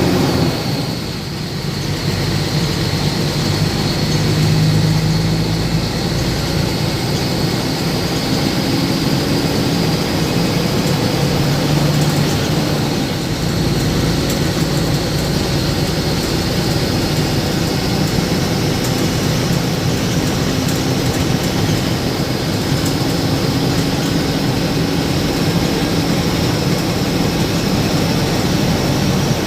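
Steady running noise of a vehicle with its engine going, with a low hum under it and a faint high whine.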